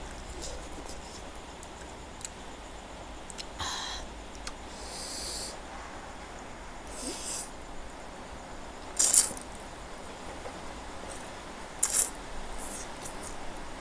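A person slurping spicy Korean instant noodles off a fork in several short noisy bursts, the loudest about nine and twelve seconds in, with quieter chewing and a few small clinks of the fork in between.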